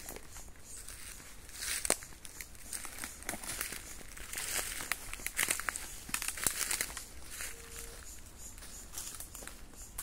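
Footsteps crunching through dry bamboo leaf litter and fallen canes, an uneven crackling with sharp snaps.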